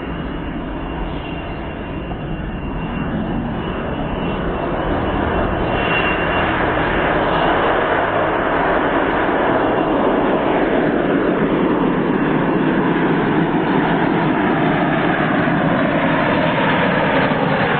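Four model jet turbine engines of a giant-scale RC Avro Vulcan at takeoff power, a loud steady jet roar through the takeoff run and climb-out. A high whine rides on top for the first few seconds. The roar grows louder over about eight seconds and then holds, with tones sweeping down through it as the model climbs away.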